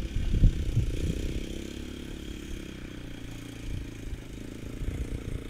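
Small four-wheeler (ATV) engine running as the quad rides over a rough dirt track, with a few louder low thumps in the first second.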